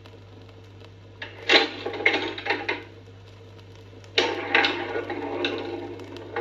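Coin-operated cafe machine from the 1960s–70s working, with two bursts of rapid mechanical clicking and clattering over the machine's steady electrical hum.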